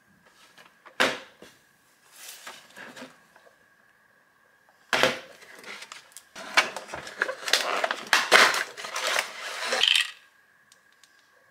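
Clear plastic product packaging being handled and opened: a sharp knock about a second in, brief light rustling, another knock around five seconds in, then several seconds of dense crinkling and crackling plastic as the box is pulled open and the contents slid out.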